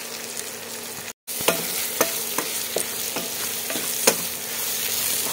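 Olive pieces and spices sizzling in oil in a nonstick kadai while a wooden spatula stirs them, knocking against the pan about twice a second. The sound cuts out for a moment about a second in.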